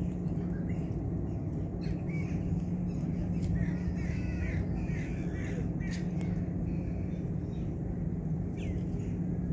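A steady low hum of outdoor background noise, with a few bird calls about three and a half to five seconds in and scattered faint clicks.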